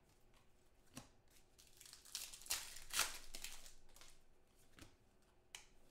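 A trading-card pack wrapper being torn and crinkled open, mostly between about two and three and a half seconds in, with a few light taps as cards are handled.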